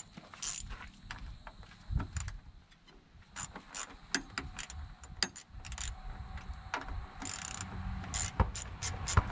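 Ratchet wrench clicking in irregular short runs as it works loose the 10 mm bolts holding the liftgate strut, the clicks sparse at first and coming thicker from about halfway through.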